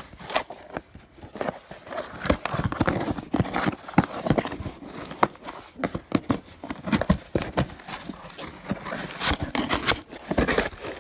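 Cardboard shipping box handled by hand as its flaps are folded open: irregular scrapes, taps and rustles of cardboard.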